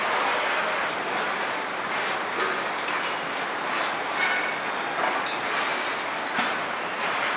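Truck assembly-line factory noise: a steady machinery din with short hissing bursts every second or two and a few brief high squeals.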